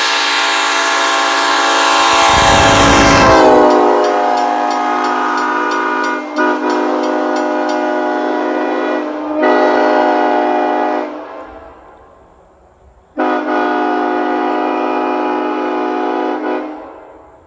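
Locomotive passing while sounding a Nathan Airchime K5LLA five-chime air horn. The chord drops in pitch about three seconds in as it goes by, with a brief low rumble. It then carries on in long blasts with short breaks, fades out, and sounds once more for a few seconds near the end.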